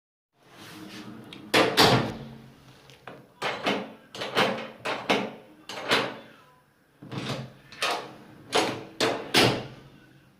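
Gateman E100 digital door lock's latch mechanism clacking as the door and handle are worked. It gives about a dozen sharp metallic clicks, several in quick pairs, each ringing briefly.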